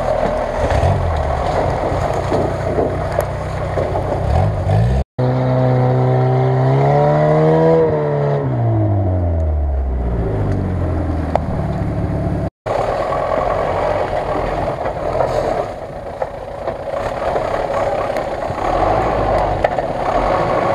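GAZ-66 truck's engine running under load while crawling off-road. About five seconds in, a cut to a LuAZ-969's engine revving up and then dropping back; after another cut, the GAZ-66's engine again.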